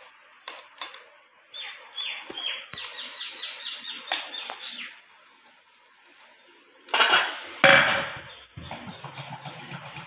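Metal spatula scraping and clinking against an aluminium cooking pot while stirring rice. Between about 1.5 and 5 seconds there is a run of short high squeaks, about four a second. About seven seconds in there is a louder clatter.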